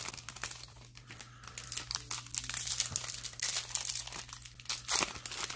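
Foil wrapper of a Bowman baseball card pack crinkling and tearing as it is opened by hand. It is an irregular crackling rustle, quieter about a second in and busiest near the end.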